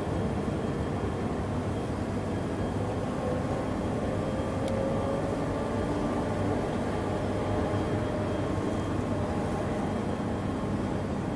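Steady low background rumble, with a faint hum that rises slightly in pitch through the middle.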